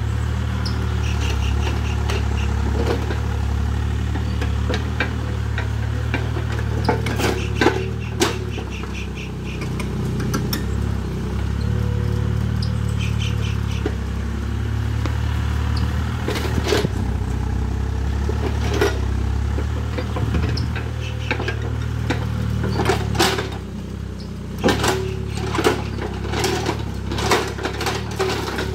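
Hitachi EX30 mini excavator's diesel engine running steadily while it digs, with scattered sharp clanks and knocks from the bucket and dirt, coming in clusters several times.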